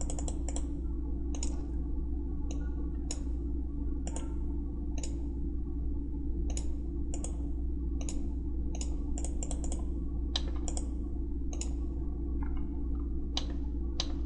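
Computer mouse clicks at an irregular pace, about one a second, some in quick double-click pairs, over a steady low electrical hum.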